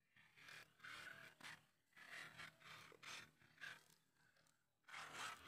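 Faint, irregular scraping strokes, roughly two a second, with a pause of about a second before one more near the end.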